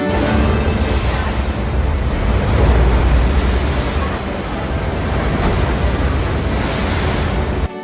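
Wind buffeting the microphone over sea surf: a steady rushing noise with a heavy, fluttering low rumble.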